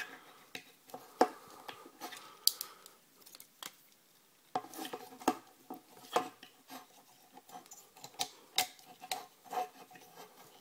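Transforming robot toy being folded into robot mode: irregular sharp clicks and snaps of its parts locking into place, with faint rubbing and scraping of pieces between them.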